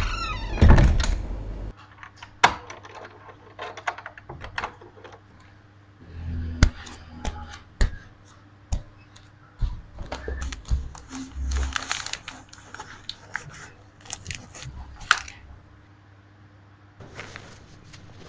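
Irregular clicks, knocks and light rattles of small hard objects being handled, with a few louder knocks: one about a second in, one a couple of seconds later and one near fifteen seconds.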